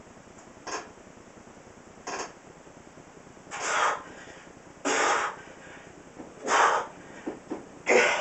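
A man breathing out hard in time with the reps of a heavy one-arm dumbbell row. There are six breaths about a second and a half apart, and from about three seconds in they turn louder and longer as the set gets harder.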